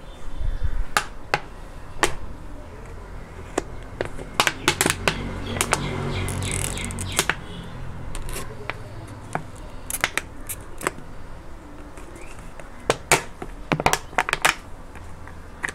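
Small scissors cutting through a thin plastic water bottle: irregular sharp snips, some single and some in quick runs of several.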